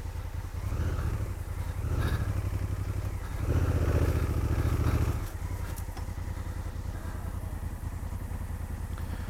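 Motorcycle engine idling with a steady rapid pulse, blipped up three times, the third rev longer and louder, before settling back to idle.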